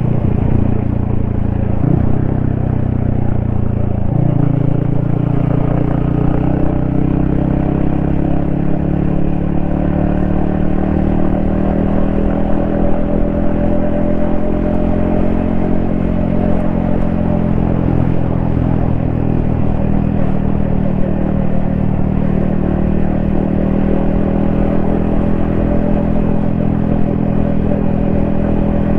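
Yamaha XSR155's single-cylinder engine running under way, heard from the rider's helmet. The engine note changes abruptly about two and four seconds in, then holds fairly steady with slow small rises and falls.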